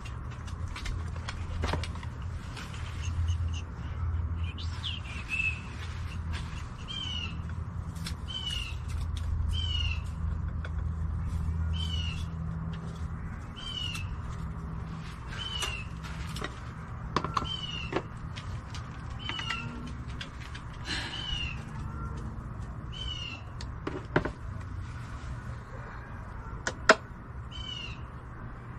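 An animal calling over and over, a short high chirp about once a second, with a few light knocks near the end.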